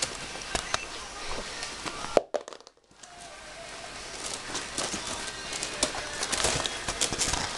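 Border collie puppies play-fighting on bedding: rustling and scuffling with small clicks and a faint high whine. The sound drops out for under a second about two seconds in.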